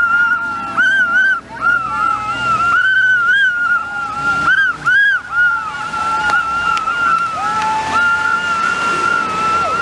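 A loud, steady, high-pitched whistling tone that wavers slightly in pitch throughout. A second, lower steady tone joins it about three quarters of the way in and drops away near the end.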